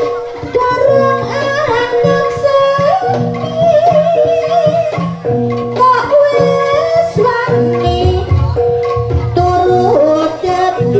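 Live Javanese jaranan gamelan music: a wavering melody line over held tones and a low, repeating drum-and-gong pulse.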